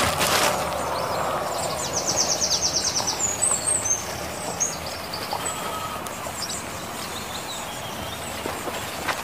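Outdoor rural ambience: a steady hiss with small birds chirping, including a quick trill about two seconds in.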